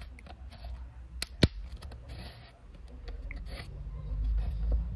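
Plastic speaker grille of a radio cassette being pressed and handled: scattered light ticks, with two sharp clicks close together about a second and a half in, over a low rumble.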